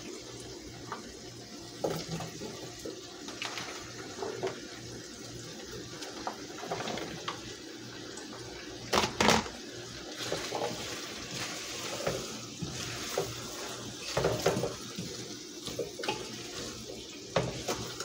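Chicken drumsticks sizzling in a pot with a steady hiss, while a spoon knocks and scrapes against the pot as chopped peppers are tipped in and stirred. There is a louder clatter about nine seconds in.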